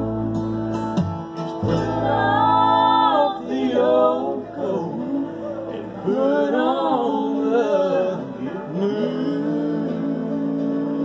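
Acoustic bluegrass jam: voices singing over strummed acoustic guitar, upright bass and banjo. The singing drops away near the end and the instruments carry on.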